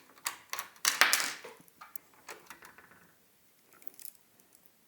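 Parts of an AKAI EWI 4000s being handled and worked loose during disassembly: a quick series of sharp clicks and knocks, loudest about a second in, thinning out after about two and a half seconds.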